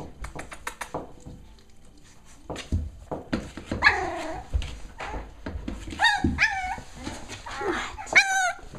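Cavalier King Charles Spaniel puppies whining and yipping: a falling whine about four seconds in, two short yips around six seconds, and a wavering, trilling whine near the end. Scattered clicks and knocks of the puppies moving about run underneath.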